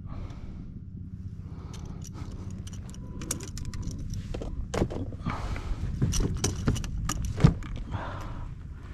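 Handling noises on a fishing kayak while a caught redfish is dealt with: scattered clicks, knocks and rattles, busier in the second half, with a sharp knock about two thirds of the way in, over a low steady rumble.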